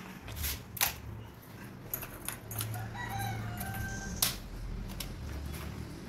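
A few sharp metal clicks from a cylindrical door lock being screwed together with a ratcheting screwdriver and fitted by hand. A rooster crows once in the background, a call of about a second and a half near the middle.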